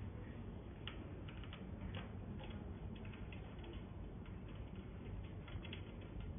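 Irregular small clicks and taps of metal parts as hands fit the cable into a bicycle's mechanical disc brake caliper, over a low steady hum.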